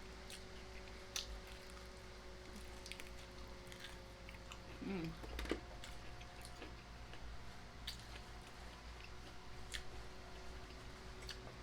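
Close-up chewing and biting of fried chicken, with scattered soft crunchy clicks. A brief hum of a voice comes about five seconds in.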